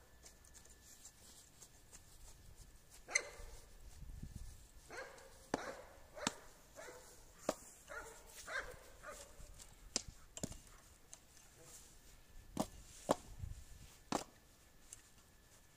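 A dog barking now and then: about nine short single barks a second or two apart. A garden tool scrapes and works soil underneath.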